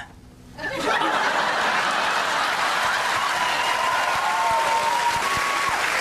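Studio audience applauding, breaking out about a second in after a brief hush and then holding steady.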